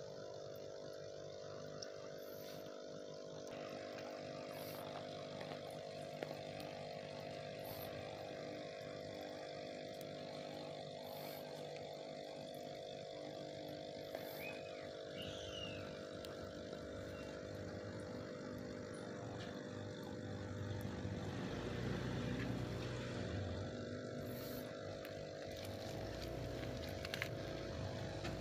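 Aquarium air pump humming steadily while its air stone sends a stream of bubbles up through the water. A low rumble swells in the last third.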